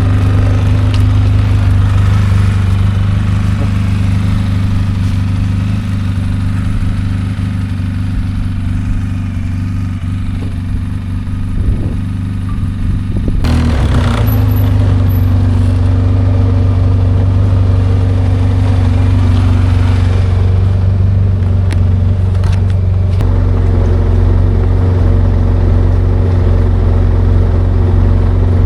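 ATV engine running steadily while riding. It eases off briefly about ten seconds in, then picks back up around fourteen seconds.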